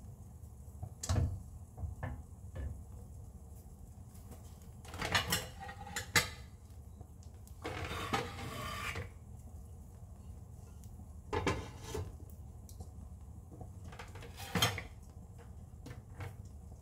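Kitchen clatter of dishes and utensils: scattered light knocks and clinks, with a rustling scrape lasting about a second around the middle.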